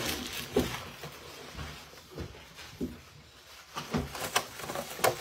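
Scattered light clicks and knocks, about six in a few seconds, from plastic food wrap and tableware being handled at a table.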